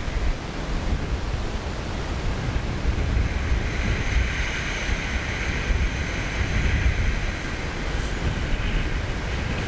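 Wind buffeting the microphone with a steady low rumble, over waves breaking and washing on a shingle beach; a hissing wash of surf swells about three seconds in and fades again near the end.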